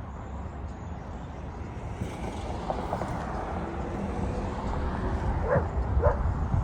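A dog barking a few times over a steady low rumble, with the last two barks about half a second apart near the end.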